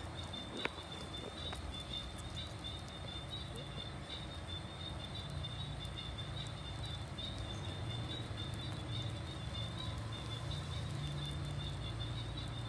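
Two sugar gliders nibbling pork from fingertips, with faint scattered clicks of their chewing. Under it runs a steady low hum and a continuous high-pitched chirring.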